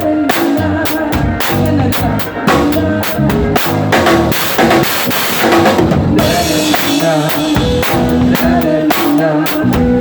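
Acoustic drum kit played hard along with a backing pop-rock song: steady kick, snare and cymbal hits over the recorded band track, in an instrumental passage with no singing.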